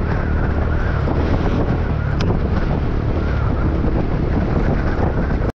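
Wind buffeting the microphone on a moving scooter, over the steady running of its small engine and tyre noise on the road. The sound cuts off abruptly near the end.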